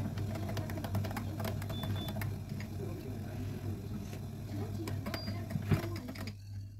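A spoon clinking and scraping in a glass of coffee with milk, over a steady kitchen buzz and hum. Most of the buzz drops away about six seconds in, leaving the low hum.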